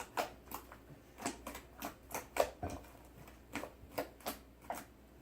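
Sticky butter slime being kneaded and squished by hand as clay is worked into it, making irregular wet clicks and pops, several a second.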